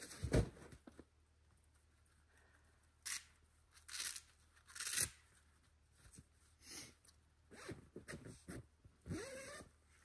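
Zipper on a nylon tent carrying bag being pulled open in several short strokes, with fabric rustling. A low thump sounds just after the start.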